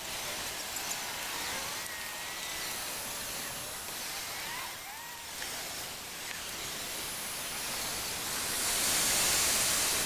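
Steady outdoor hiss with a few faint chirps, swelling to a louder rush of hiss near the end.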